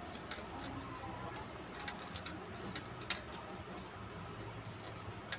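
Quiet background ambience: a low steady hum with a few scattered light clicks, the sharpest about two and three seconds in.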